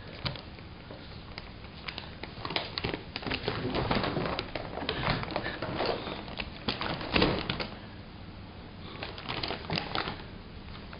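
Paper bag crinkling and rustling as cats shift and scratch about inside it: irregular clusters of quick crackles and scratches, busiest in the middle and again near the end.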